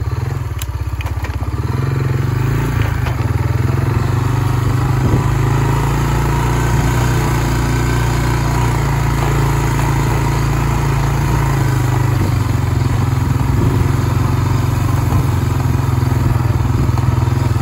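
Farm vehicle engine running steadily as it drives slowly through tall pasture grass; the engine note picks up about two seconds in.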